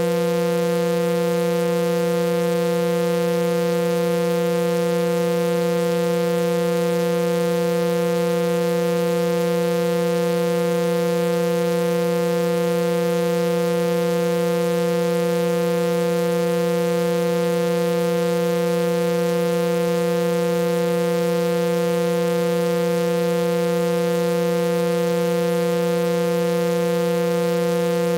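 Synthesized sound-healing tones, a set of frequencies generated from a voice sample, playing as a steady, unchanging drone: a strong low hum with two higher tones above it and many fainter high tones layered over them.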